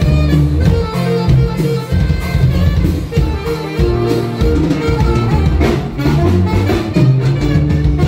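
Norteño band music played live: a steady bass line and drums under sustained melody instruments, with no break.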